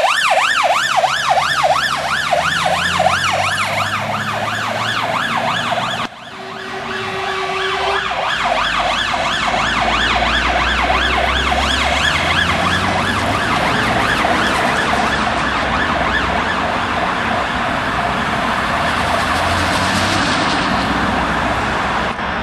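Fire engine's electronic siren on a fast yelp, its pitch sweeping rapidly up and down several times a second, over the low rumble of the diesel engine pulling away. The sound cuts about six seconds in and the yelping siren carries on over road noise, with a short steady tone just after the cut.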